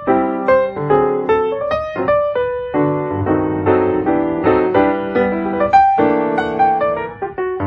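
Piano music: a quick, continuous run of struck notes and chords.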